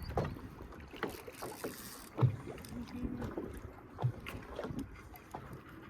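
Irregular knocks, clicks and thumps of fishing gear being handled against a small boat's hull, with two louder hollow thumps about two and four seconds in.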